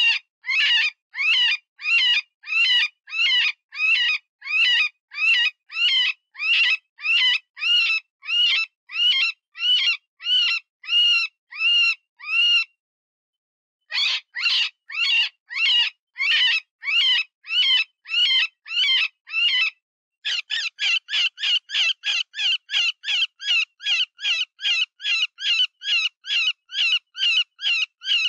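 Cottontail rabbit distress call used as a predator lure: a long run of short, high-pitched squealing cries, each rising then falling, repeated about one and a half times a second. The cries stop for about a second roughly halfway through, then come back, and after a brief break they run faster, about two and a half a second.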